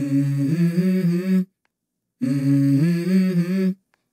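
A short hummed phrase, a low note stepping up to a higher held note, sounded twice with a short silent gap between, the same each time.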